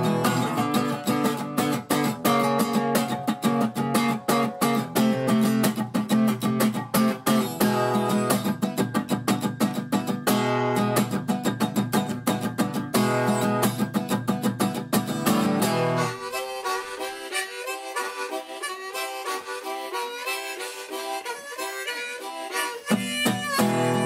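Folk music with strummed acoustic guitar and harmonica and a steady beat. About two-thirds of the way through, the bass drops out for a lighter passage, and the full band comes back in near the end.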